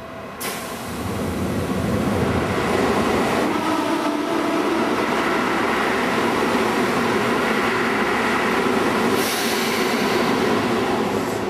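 Seibu 2000 series electric commuter train pulling out of the station. A sharp clunk about half a second in, then motor and wheel noise builds over the first couple of seconds and runs steadily as the cars roll along the platform. A brief high hiss comes about nine seconds in.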